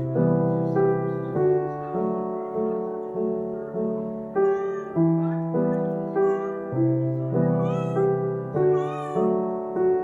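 Background piano music with a steady, even rhythm. Over it, a kitten mews several short, high, wavering times in the second half.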